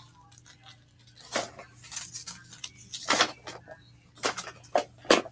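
Slime containers clicking and knocking together as they are handled and packed, a series of scattered short clacks.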